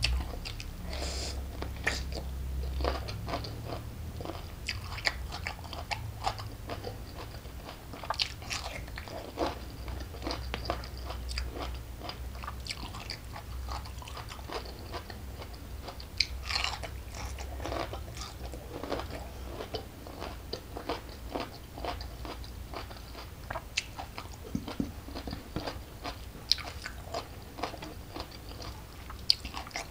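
Close-miked eating: crisp bites and crunching on a raw vegetable dipped in sambal, with wet chewing in between, over a steady low hum.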